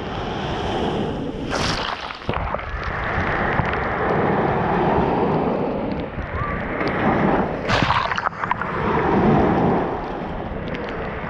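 Small sea waves breaking and washing up over a sandy beach right in front of a microphone at sand level, the wash swelling and easing with each wave, with a couple of sharp splashes.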